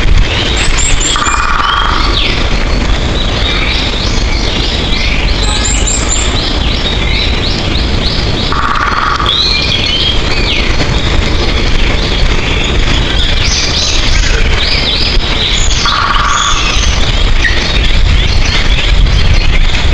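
Several songbirds chirping and singing together, many quick high calls overlapping. One short lower note repeats three times, about seven seconds apart, over a steady low rumble.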